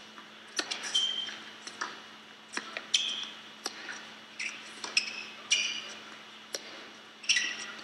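Tennis rally: sharp racket strikes on the ball and ball bounces on the court, coming about every half second to a second, each ringing briefly in the hall, with short high squeaks from shoes on the court.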